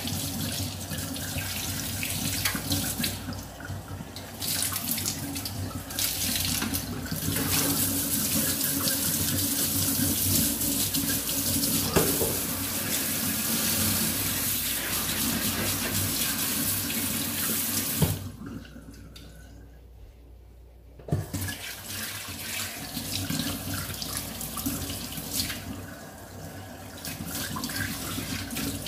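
Running water, a steady rushing that stops for about three seconds roughly two-thirds of the way through, then starts again.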